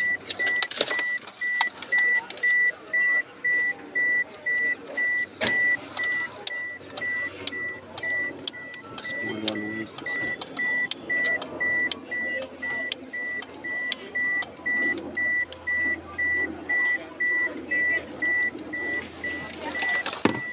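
Electronic beeper sounding a steady high-pitched beep about twice a second, over scattered clicks from hands working in the car.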